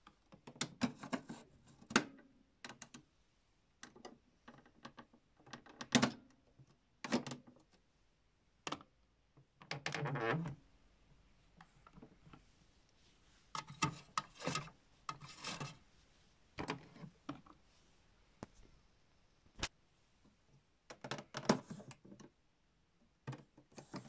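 Plastic clicks, knocks and short rattles as the doors and detergent drawer of Miele W1 toy washing machines are handled: irregular single clicks with several denser bursts of rattling, the longest about a second long near the middle.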